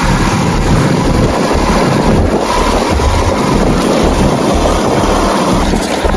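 Motorcycle running at riding speed, heard from the rider's position, with heavy wind buffeting on the microphone that comes and goes in gusts.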